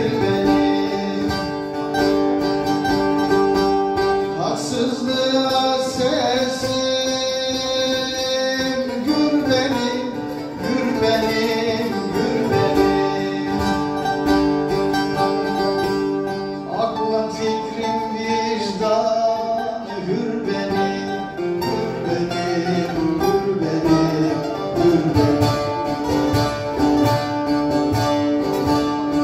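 Bağlama (long-necked Turkish saz) played as a solo, a plucked melody running on without a break.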